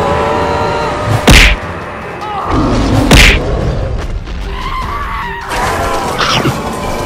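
Cartoon fight impact sound effects: two loud thuds, about two seconds apart, and a weaker hit near the end, over background music.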